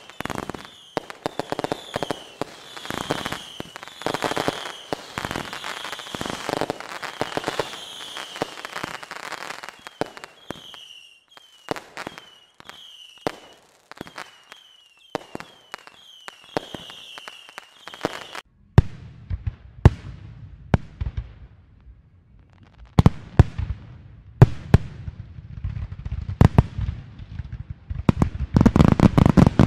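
Fireworks going off: a rapid run of pops and crackles with many short, high chirps in the first half. Then, after a sudden change a little past halfway, sharp bangs over a low rumble build to a dense, loud barrage near the end.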